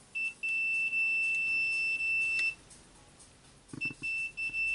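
Digital multimeter continuity beeper on the field coil of a Dewalt D25831 rotary hammer, giving one steady high tone that keeps cutting in and out. There is a short beep, then a tone of about two seconds, then a stutter of short chirps and another long tone near the end. The broken tone is the sign of a loose contact in the field wiring.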